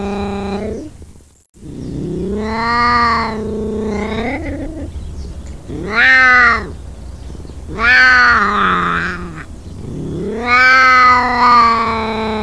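Ocelot calling: a string of long, drawn-out cat calls, each rising and then falling in pitch, one every two to three seconds with short gaps between.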